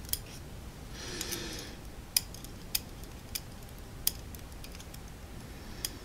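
Light, scattered metallic clicks, about half a dozen at uneven intervals, from small brass lock pins and tools being handled over a pin tray while the driver pins of a gutted padlock cylinder are laid out. A soft brief rustle comes about a second in.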